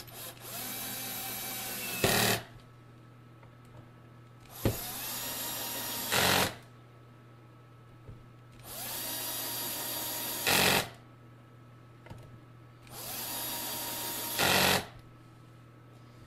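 Cordless drill-driver driving bridge mounting screws into a bass guitar body, four times. Each run lasts about two seconds and ends in a short, louder clatter as the clutch, set to a low torque of 4, slips when the screw seats.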